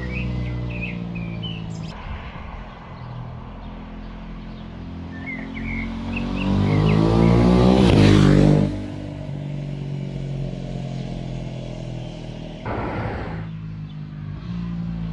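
Aprilia 660 parallel-twin motorcycle running, then accelerating past with the engine note rising to its loudest about eight seconds in before dropping away sharply. Birds chirp early on and again in the middle.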